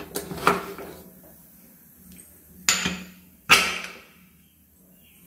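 Aluminium pressure cooker lid being closed and locked: metal clanks and knocks, a few just after the start and two sharper ringing ones about two and a half and three and a half seconds in.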